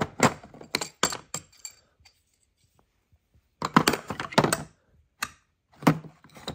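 A string of sharp clicks and hollow knocks from plastic trim parts and tools being handled and fitted back into place, in two quick clusters with a short quiet gap between.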